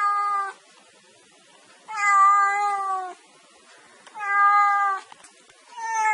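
Domestic cat meowing again and again, about one call every two seconds. A call is ending at the start, a long drawn-out meow comes about two seconds in and sags a little at its end, a shorter one follows about four seconds in, and another begins near the end.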